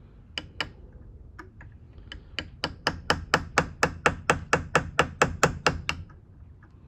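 Small ball-peen hammer tapping a sharp-tipped punch against a broken, stuck thumb screw, metal on metal, to try to turn the screw out. A few light taps, then a quick even run of about five sharp taps a second for roughly three and a half seconds.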